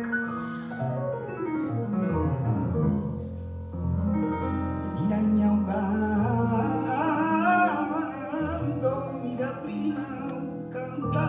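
Flamenco singing with long, wavering sung lines over piano and upright double bass, with a falling piano run about a second in.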